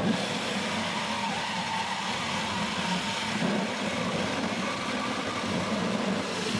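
Cordless drill driving a 4.5-inch hole saw through the sheet-steel rear body tub of a Jeep Wrangler TJ: a steady grinding cut that starts abruptly and holds an even level.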